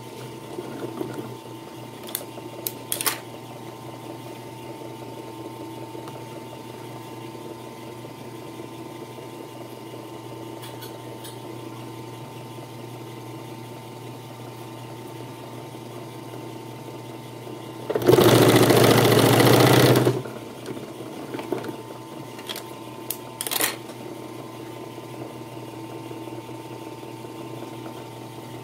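Puritan three-needle industrial sewing machine stitching leather: its motor hums steadily between runs, with one short burst of sewing, about two seconds long, some eighteen seconds in, and a few light clicks around it.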